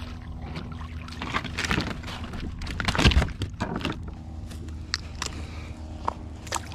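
A hooked fish splashing at the surface beside a kayak as it is landed, followed by irregular knocks and handling noises on the kayak, the loudest a thump about three seconds in. A steady low hum runs underneath.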